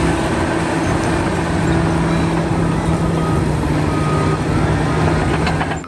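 Large Caterpillar crawler bulldozer's diesel engine running steadily under load as it pushes earth, a constant low drone over heavy machine noise.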